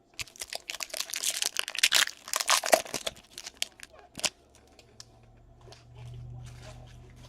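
Foil trading-card pack wrapper being torn open and crinkled: dense crackling and crinkling for about four seconds. A faint low steady hum follows.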